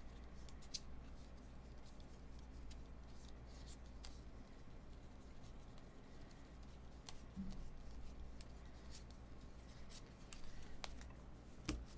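Faint handling of a stack of thick chromium baseball cards: cards slid and flicked from one hand to the other, with scattered light clicks. A low steady hum runs underneath.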